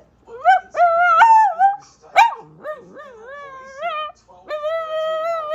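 Dog whining in long drawn-out cries that bend up and down in pitch, broken by a few short sharp yelps in the first half; the last cry, near the end, is held steady.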